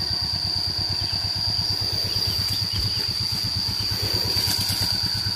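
A small engine running steadily at idle, with a constant high-pitched insect buzz over it.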